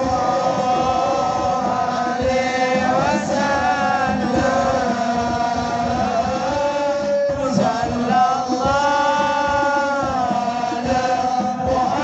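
Devotional Islamic singing (sholawat): a melody sung in long, wavering held notes over musical accompaniment, with a short break about seven seconds in.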